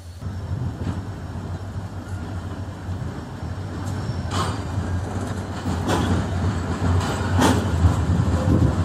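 Train moving at a railway station: a steady low rumble that grows slightly louder, with three sharp knocks in the second half.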